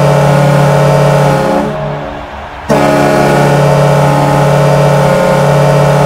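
Hockey goal horn sounding a long, steady, low blast that dies away about two seconds in, then a second blast starting abruptly just before the three-second mark.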